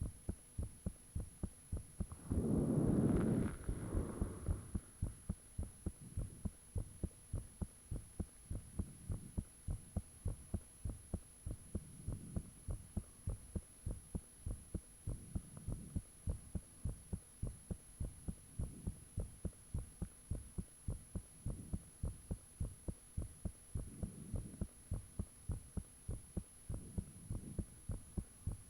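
A person's own heartbeat recorded close up: a steady, regular train of low thuds. About two to four seconds in, a louder burst of noise briefly rises over the beats.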